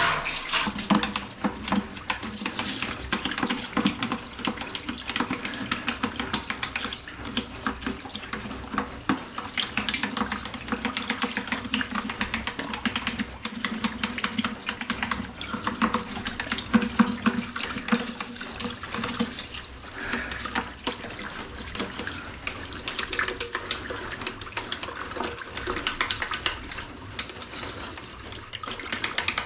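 Water running from a tap while washing-machine parts are washed under it, with many quick scraping and scrubbing strokes.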